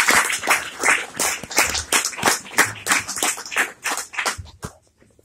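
Small audience applauding, the claps thinning out to a few scattered ones and stopping about four and a half seconds in.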